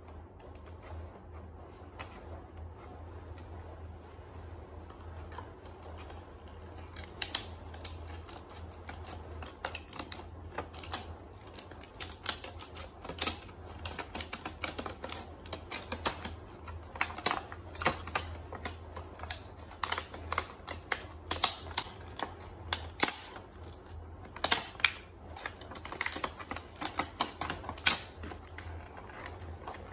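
Clear plastic shrink-wrap on a toy doctor-set case being cut with scissors and pulled open: irregular crinkling crackles and snips, starting about seven seconds in.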